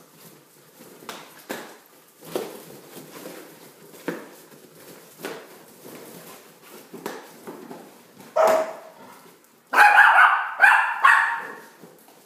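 Shih Tzu barking: one bark about eight seconds in, then a quick run of loud barks. Before that come only soft, scattered taps and scuffles while it moves among balloons on a tiled floor.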